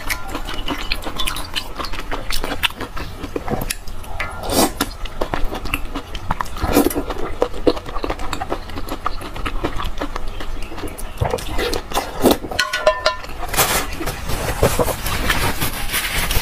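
Close-miked wet chewing, biting and slurping of fatty braised pork cockscomb fat (the intestinal fat) in chili broth: irregular smacking and squelching mouth sounds.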